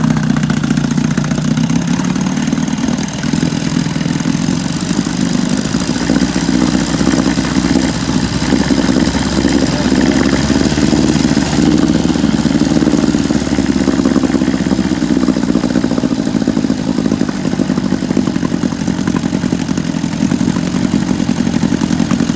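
Johnson 6 hp outboard motor running steadily in a test tank of water. Its pitch rises a little about a third of the way in and eases back down later.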